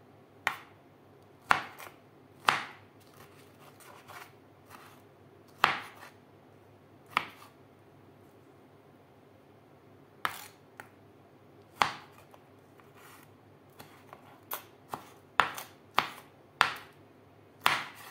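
Knife chopping fruit on a wooden cutting board: sharp, separate knocks of the blade on the board at uneven intervals, coming faster near the end.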